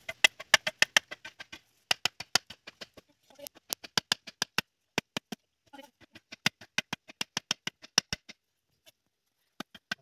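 Machete blade striking the tops of bamboo stakes to drive them into gravelly ground: rapid runs of sharp knocks, about five a second, in several bursts, ending with a few single knocks near the end.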